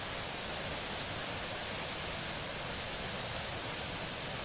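Year-round creek rushing over rapids: a steady, even roar of water.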